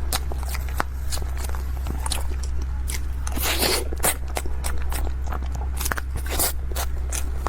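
Close-miked eating: biting and chewing with many short, sharp mouth clicks, and a longer crunchy rustle about three and a half seconds in, over a steady low hum.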